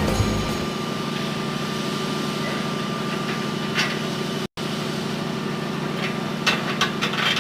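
Punch machine running with a steady motor hum, with a single click a little before the midpoint and a quick cluster of clicks near the end.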